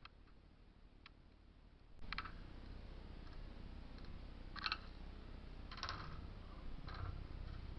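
Faint, scattered clicks and knocks, roughly one a second, over a low background rumble that comes up suddenly about two seconds in.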